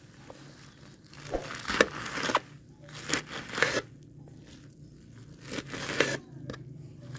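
Kitchen knife chopping through a pile of wilted spinach leaves and stalks: a few quick runs of short, moist crunching cuts with pauses between them.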